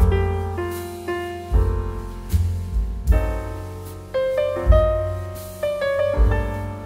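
Background piano music: a melody of single notes over low bass notes struck about every second and a half, each note fading after it is played.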